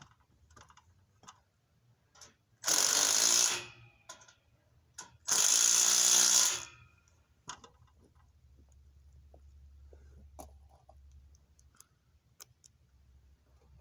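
Power drill running in two short bursts, about a second each and two seconds apart, fastening wire lock channel, with light clicks of handling between.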